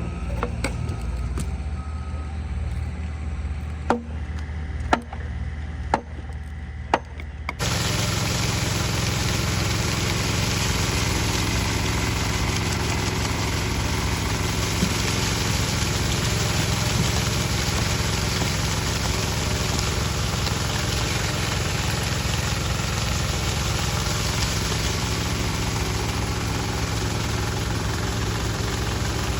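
An engine running steadily, with a few sharp clicks about four to seven seconds in. Then, after about seven and a half seconds, the sound turns abruptly louder and noisier and stays steady.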